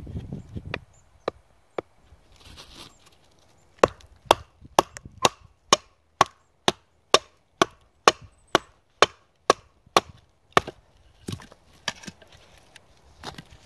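Batoning firewood: a wooden baton knocking on the back of a knife blade driven into a piece of wood to split it. A few scattered knocks come first, then a steady run of about two knocks a second for some seven seconds, then a few more spaced out near the end.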